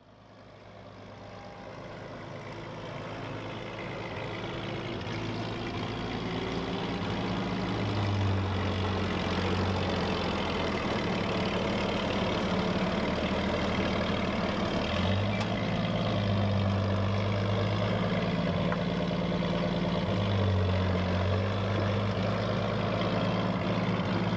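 Large forklift's engine running, swelling in over the first several seconds, its note rising and falling a few times as the revs change.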